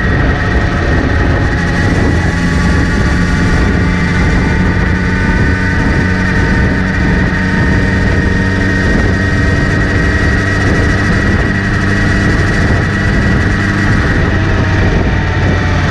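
Kawasaki Z900RS inline-four engine running steadily with a high whirring whine over it, a noise the owner traces to the front sprocket area after cleaning and relubing the chain, with chain tension checked as fine.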